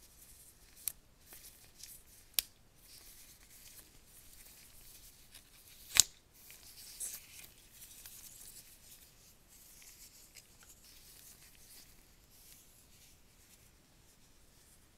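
Rustling of a coiled white USB-C charging cable being unwound by gloved hands, with a few sharp clicks; the loudest click comes about six seconds in.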